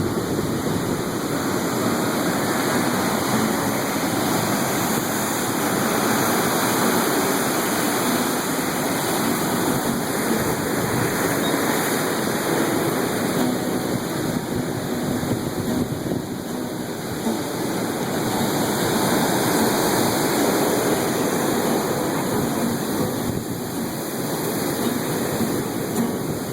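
Steady rushing of ocean surf breaking, swelling and easing gently now and then.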